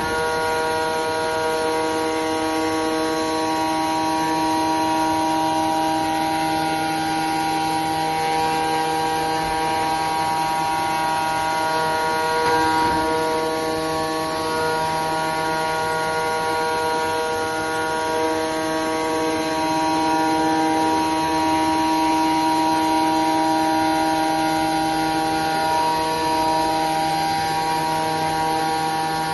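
CNC machine running while cutting a part: a steady whine of several tones together. Some of the tones fade out and come back as the cut goes on.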